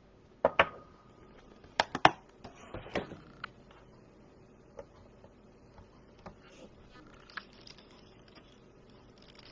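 Clear rubber-like stamps and an acrylic stamping block clicking and tapping against the desk and paper as they are handled. A few sharp knocks in the first two seconds, the loudest about two seconds in, then a short rustle and scattered light taps.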